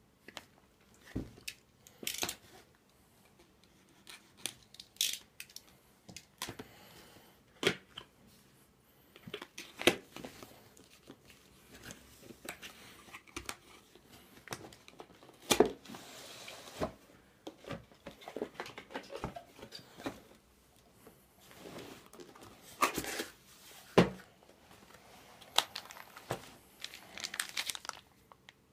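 Cardboard graphics-card box being opened and unpacked by hand: irregular sharp taps and knocks of cardboard flaps, with rustling and crinkling of paper and packaging, the loudest knocks about halfway through and near the end.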